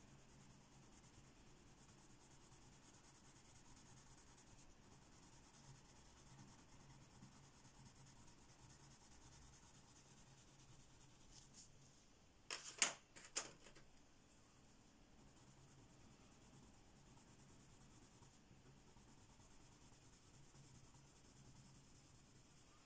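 Faint scratching of a Giorgione coloured pencil shading swatches on paper. A brief cluster of sharp clicks comes about halfway through.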